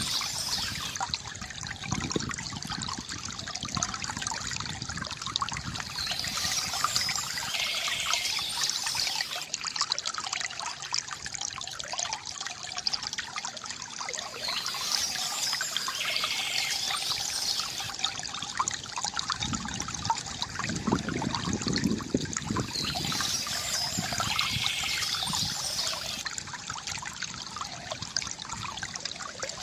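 Water trickling and gurgling in a steady flow from a bamboo fountain, with a brighter swell in the sound coming round about every eight to nine seconds.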